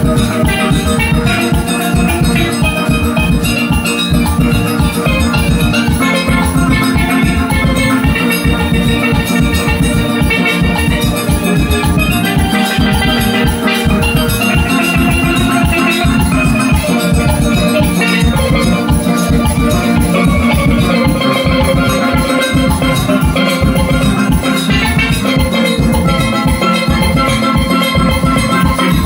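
Steel band playing live: several steelpans ring out quick melody and chord notes over drums keeping a steady, driving beat.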